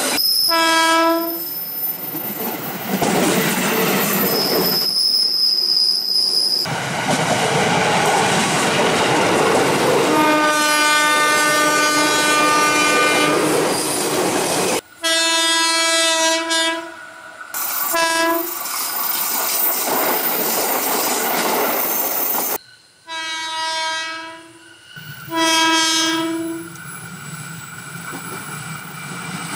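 KRL commuter electric trains sounding their horns: about six blasts, each a single steady tone, one held for about three and a half seconds near the middle and the others short. Between them, the noise of the trains running on the rails, with a high steady squeal at about five seconds.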